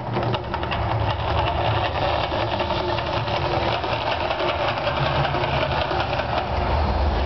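Mirage volcano show running: a steady low rumble under a dense, fine crackle, the rumble growing stronger near the end.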